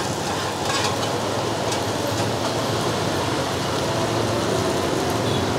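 Hủ tiếu rice noodles and bean sprouts sizzling steadily in a hot wok, with a couple of short metal clinks about a second in.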